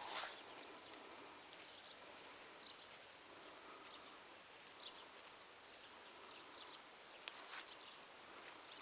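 Near silence: a faint outdoor hiss with a few short, distant bird chirps about two seconds apart.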